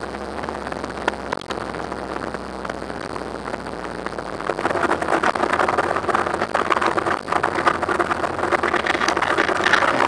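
Riding a motorcycle through town traffic: a steady rush of wind and road noise on the bike-mounted camera's microphone, with the engine running underneath. It gets louder about halfway through.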